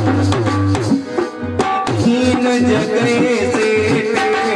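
Devotional bhajan: a male voice singing over tabla and instrumental accompaniment, the tabla's bass strokes keeping a steady beat.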